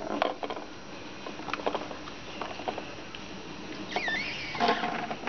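Light plastic clicks and taps as a kitten paws at an orange plastic circular track toy, with short rattles scattered through the first few seconds. About four seconds in there is a brief high-pitched voice-like cry.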